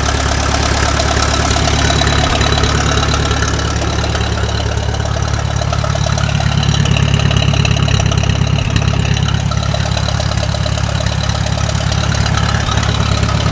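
IH 350 Utility tractor's four-cylinder gasoline engine idling steadily just after starting.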